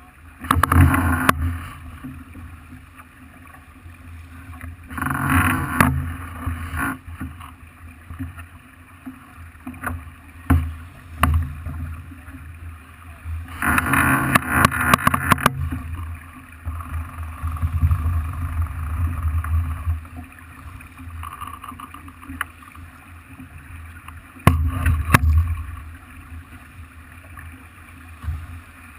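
Water rushing and splashing along the hull of a Farr 40 racing yacht under sail, over a steady low rumble, swelling in four loud surges as it meets the waves, with a few sharp knocks in between.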